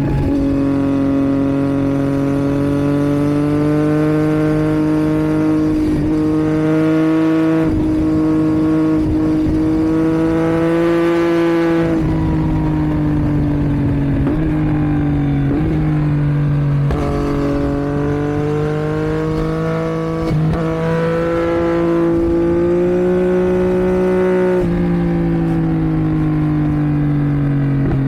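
2022 Yamaha MT-09's 890 cc inline-three engine breathing through a Roadsitalia homologated exhaust under way. Its note climbs slowly and drops back sharply three times.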